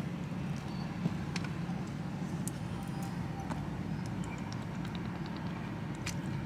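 Steady low hum of an idling car, with a few faint clicks.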